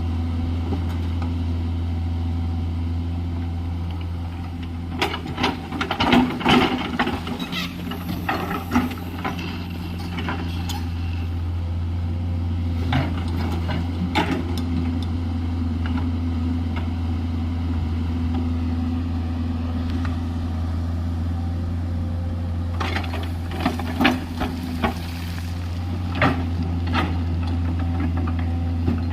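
JCB 210LC excavator's diesel engine running with a steady low hum. Clusters of knocks and clatter come in a few seconds in, again briefly midway, and again near the end.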